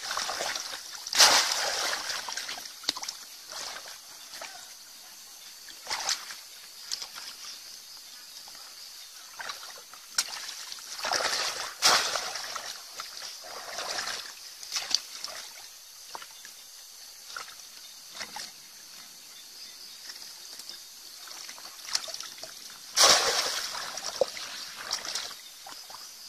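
Shallow water splashing and sloshing in separate bursts as a bamboo plunge basket is thrust down into the muddy water and hands grope inside it for fish. The loudest splashes come about a second in, around the middle and a few seconds before the end.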